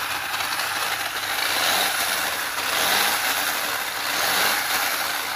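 Electric motor and gearbox of a WLtoys 12427 RC off-road car running with its wheels spinning freely in the air: a steady mechanical whir that swells slightly twice with the throttle.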